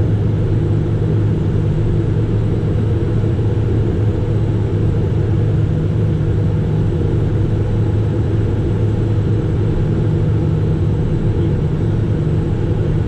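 Steady low drone inside the cockpit of a Cessna Citation Mustang in flight, from its twin Pratt & Whitney Canada PW615F turbofans and the air rushing past the cabin.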